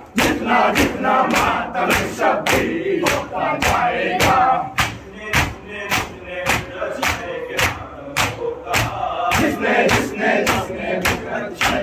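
Crowd of mourners doing matam, beating their chests in unison: sharp open-hand slaps about twice a second over men's voices chanting together.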